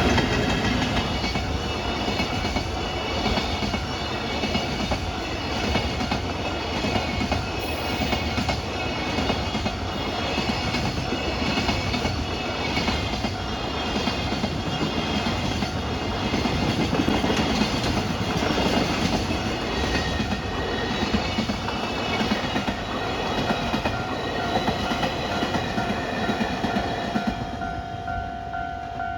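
A train running past, its wheels clattering over the rail joints. The noise eases near the end, leaving a steady high tone that was underneath it all along.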